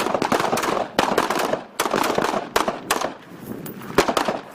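M16 service rifle fire: many sharp shots in quick, irregular succession, some louder than others, echoing off the range.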